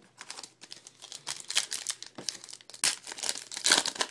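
Foil trading-card pack wrapper crinkling and tearing as it is pulled open by hand, a dense run of crackles that is loudest in the last second.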